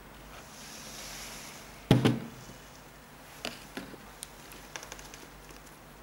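Handling noise from a leather sneaker and a small plastic bag of spare laces: a soft rustle, a loud double thump about two seconds in, then scattered light clicks and crinkles.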